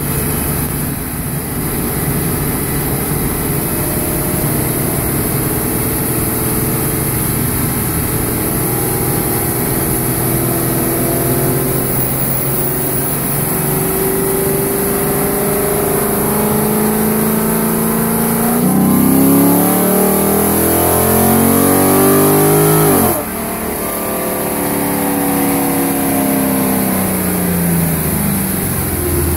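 2010 Dodge Challenger SRT8 with an Arrington Performance 440 cubic-inch stroker V8 running on a chassis dynamometer: the engine note climbs slowly through the first eighteen seconds, then goes to full throttle and rises steeply and louder for about four seconds. The throttle then shuts abruptly and the revs fall away as the car coasts down on the rollers.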